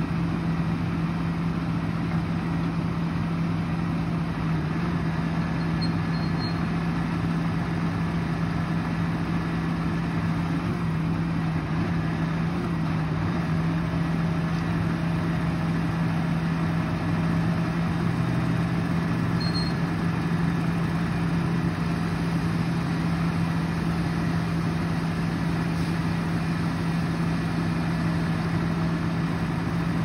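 Heavy truck's diesel engine running steadily at one unchanging engine speed, a constant low drone with no revving.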